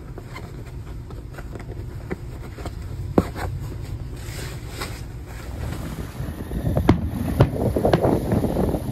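Wind rumbling on the microphone with scattered light clicks. From about six seconds in, fireworks bang several times over a dense crackle, growing louder toward the end.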